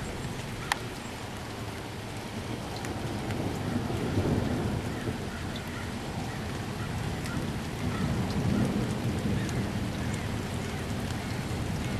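Heavy rain pouring down steadily, with a low roll of thunder that swells about four seconds in and again near eight seconds.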